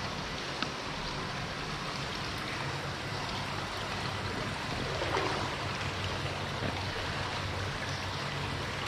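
Steady rush of flowing water, like a stream or spring-fed channel, with a small click under a second in.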